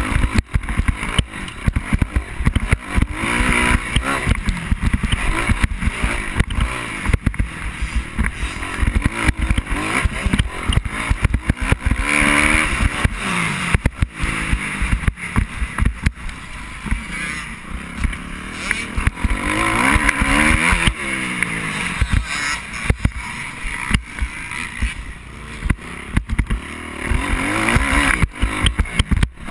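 Dirt bike engine revving up and dropping back again and again as it is ridden hard around a motocross track, with constant wind buffeting and jolts on the microphone.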